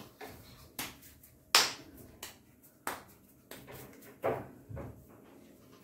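A series of about seven sharp clicks and taps at uneven intervals, the loudest about a second and a half in.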